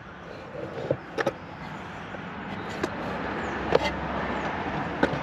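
A passing car, its road noise growing steadily louder, with a few sharp clicks scattered across it.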